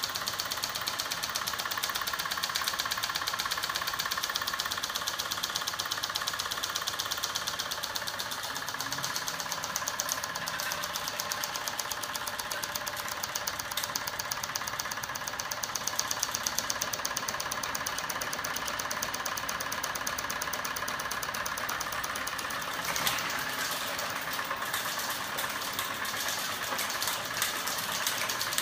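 Electric-motor-driven crank-wheel mechanism with flapping arms running at speed, its linkage and aluminium frame giving a rapid, even mechanical clatter. There is a sharper knock about 23 seconds in.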